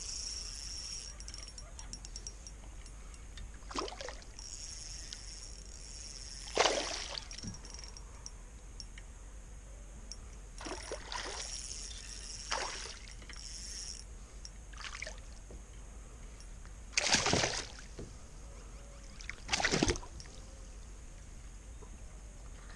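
A hooked bass thrashing and splashing at the water's surface beside a kayak while it is played in: several separate splashes, with two louder ones near the end.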